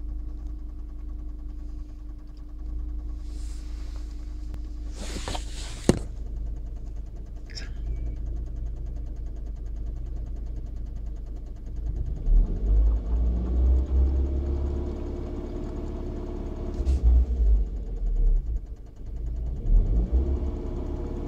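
Land Rover Freelander 1.8 petrol four-cylinder engine running with a persistent clicking or tapping. The owner wonders whether it is a tappet, the oil pump or an injector, and says it goes away at 2000 rpm. A sharp knock sounds about six seconds in, and from about halfway through there is uneven low rumbling with the pitch rising and falling.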